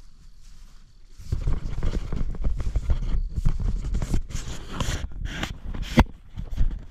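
Footsteps crunching and scraping on a gravel lot, with a low rumble underneath. A sharp click comes about six seconds in.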